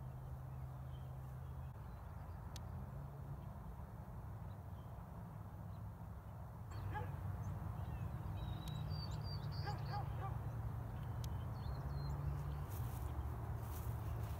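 Outdoor rural morning ambience: a steady low rumble that gets a little louder about seven seconds in, with a few faint bird chirps and distant animal calls in the middle and light scattered clicks near the end.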